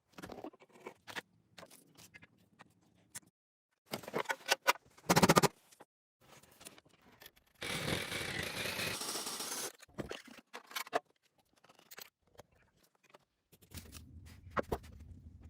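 Hand work on motorcycle parts: scattered clicks and scrapes of metal parts and tools, a loud rattle about five seconds in, and a steady hiss lasting about two seconds from around seven and a half seconds in.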